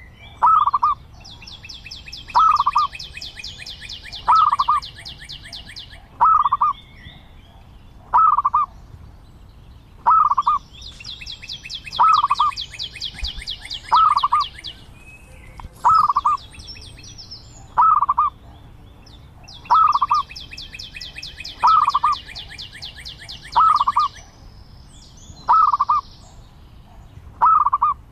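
Zebra dove calling: a short cooing note repeated steadily about every two seconds. Behind it, a rapid high trill from another bird or insect comes and goes in three stretches of about four seconds each.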